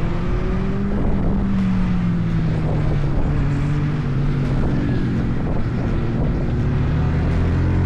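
Kawasaki ZX-6R's inline-four engine running, its pitch rising briefly about a second in and then easing down slowly.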